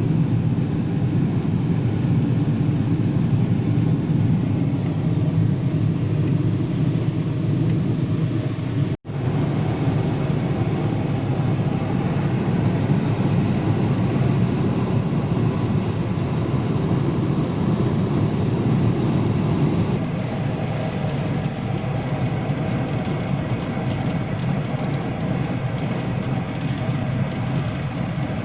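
Steady road and engine noise heard from inside a moving vehicle on a wet road in the rain. It drops out for an instant about nine seconds in.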